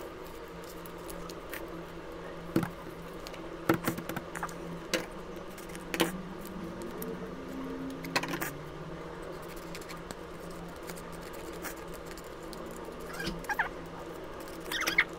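Paper rustling and crinkling as layered sheets and cut-outs on a crayon drawing are handled, lifted and folded back, with scattered sharp taps and scrapes over a steady low hum.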